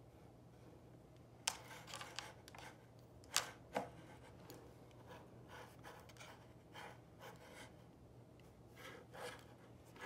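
Faint handling of small glass baby food jars with plastic lids on a table, with a few sharp clicks and light rubbing over a low steady hum.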